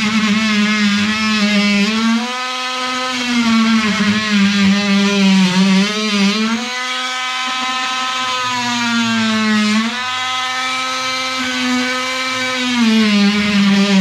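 Handheld electric power tool running continuously under load. Its motor pitch sags and recovers several times as it bites into the work, then it stops at the end.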